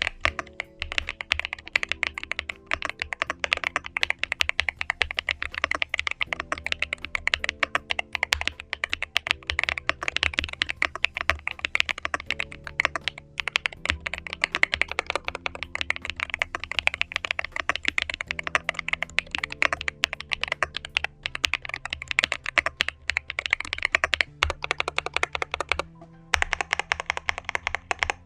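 Fast typing on a Yunzii AL75 Pro aluminum mechanical keyboard with Snow Top Coffee V2 linear switches: a dense stream of clacky keystrokes, with a couple of short pauses near the end. Background music plays underneath.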